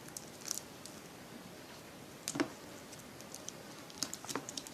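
Scattered light taps and clicks of a marker tip on paper while a face is drawn, with one louder tap about halfway and a few quick ones near the end.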